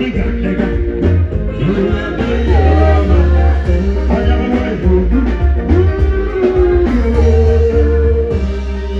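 A live band playing: a guitar melody with bending notes over a heavy, steady bass line.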